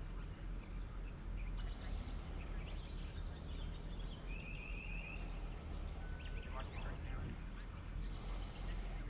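Several birds chirping and calling over a steady low rumble, with a quick trill about four seconds in and a harsher call near seven seconds.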